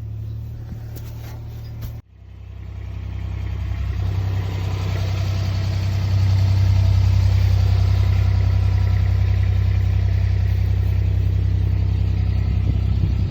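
Engine running with a steady low hum. After an abrupt break about two seconds in, it builds over the next few seconds and then holds at a louder, steady level.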